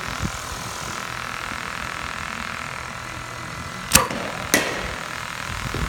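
A baseball bat striking a ball gives a sharp crack about four seconds in, followed half a second later by a second, smaller knock, over a steady low background hum.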